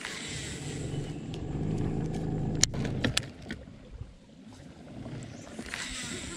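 Bass boat's electric trolling motor running steadily, as a low hum that fades about two-thirds of the way through, with a few sharp clicks near the middle.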